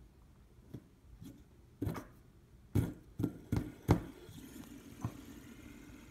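A series of sharp knocks and taps on a wooden table, several in quick succession in the middle, then a fidget spinner starts whirring steadily as it spins on the tabletop.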